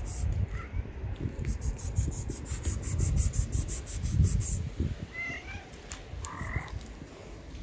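An insect chirping in a fast, even pulse of about seven chirps a second, which stops about four and a half seconds in, over a low rumble. Two short high calls come near the end.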